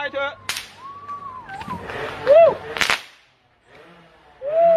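Fireworks shot from a PVC-pipe launcher: two sharp bangs about two and a half seconds apart, the second the louder.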